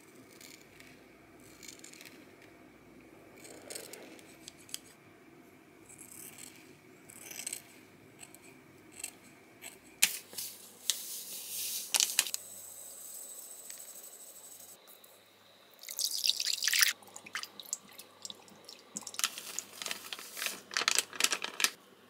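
Scissors faintly snipping hair. About ten seconds in, brown sugar filling is poured from a packet into a glass bowl with a steady hiss, and near the end a spatula clicks and scrapes against a glass bowl while mixing hotteok dough.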